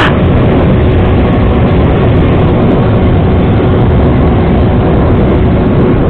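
Steady wind rushing over an action camera's microphone on a moving Suzuki Shogun Pro 125 motorcycle, with the engine running underneath as a faint steady hum.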